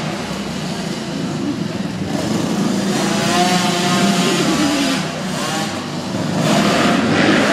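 Motocross dirt bikes revving and accelerating around a dirt track, the engine pitch rising and falling as they throttle on and off.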